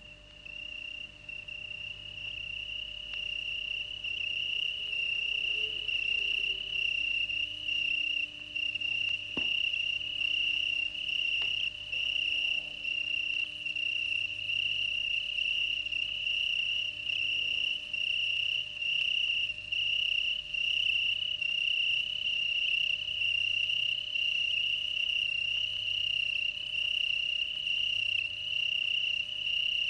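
Cricket song: a continuous high-pitched trill that fades in over the first few seconds, then runs on steadily with slight pulsing.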